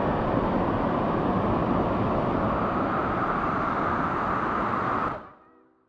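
Steady rushing noise of a waterfall, fading out about five seconds in.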